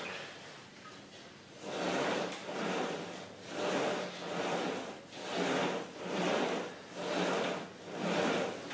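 Low cable pulley machine worked through a set of seated curls: the steel cable runs over its pulleys with a sliding, rubbing noise that swells with each pull and return. About eight even swells come a little under a second apart, starting about a second and a half in.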